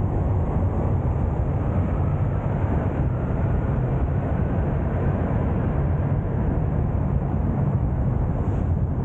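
A car driving, with steady, even road and engine rumble and no distinct events.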